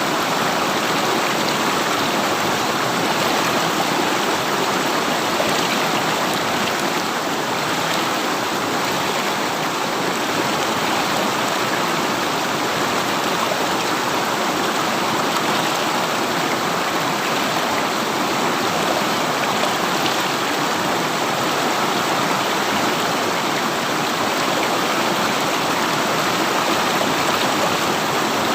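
River water running, a steady, unbroken sound of flowing water that does not change.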